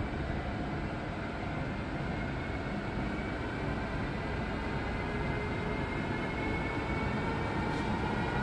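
Electric freight locomotive drawing near at low speed with a train of car-carrier wagons: a steady rumble that slowly grows louder, with a faint whine rising gradually in pitch.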